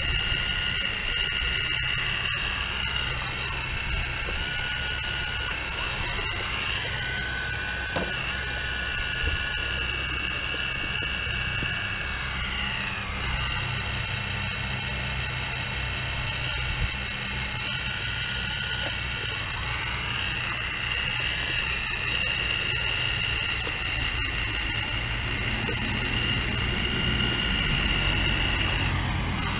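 Caterpillar 235 hydraulic excavator working: a steady diesel engine rumble under a high whine that glides down in pitch and back up twice.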